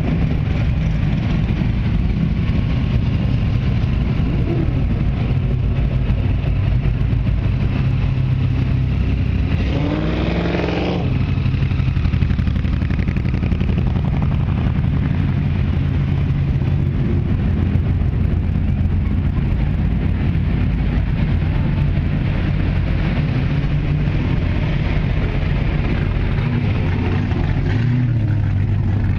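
Classic cars and pickups driving slowly past one after another, their engines running at low speed. One engine revs up briefly about ten seconds in.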